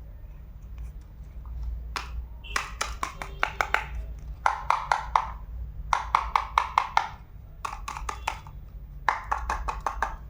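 Quick runs of small, hard taps from miniature kitchen utensils, about six to eight taps a second. The taps come in several short bursts with brief pauses between them, the first starting about two and a half seconds in.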